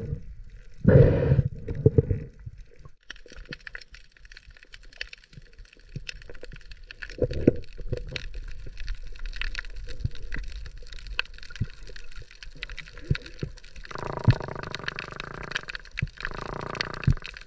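Underwater sound picked up by a diving camera on a night dive: water rushing past the housing twice about a second in, then a steady fine crackling and clicking, with a muffled hum in the last few seconds.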